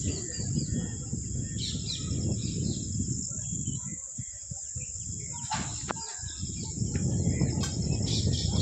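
Small birds chirping now and then over a steady high-pitched insect drone, with a low rumble throughout that eases off for a couple of seconds in the middle.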